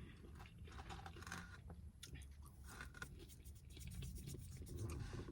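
Faint chewing with soft, scattered mouth clicks and smacks close to the microphone.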